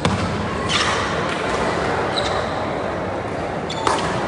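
Badminton rackets striking the shuttlecock during a rally: sharp cracks at the start, again under a second later and once more near the end, over the steady echoing background noise of a large sports hall.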